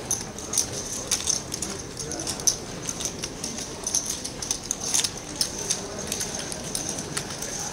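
Poker chips clicking and clacking as players shuffle and stack them at the table: many small, sharp, irregular clicks over background chatter.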